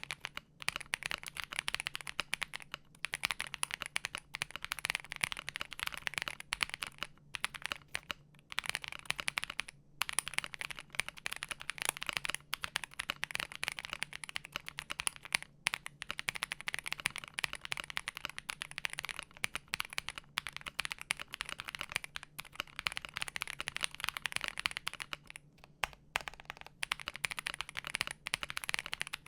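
Fast typing on a Wuque Studio Mammoth75 mechanical keyboard with stock, unlubed Wuque Studio Onion switches, Aurora stabilizers and all its foams installed. It is a dense run of key clacks with a few brief pauses.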